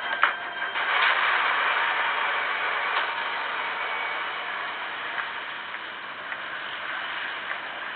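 Steady rushing outdoor background noise, a hiss heavy in the middle and upper range, that comes up about a second in, with a few faint ticks.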